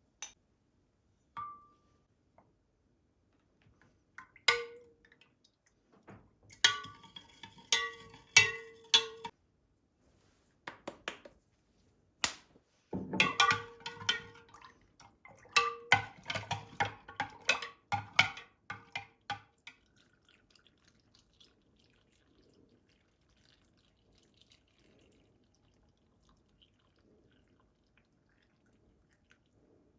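Kitchenware clinking and knocking: a few single knocks, then two busy runs of clatter, some strikes ringing briefly, before it goes quiet for the last ten seconds.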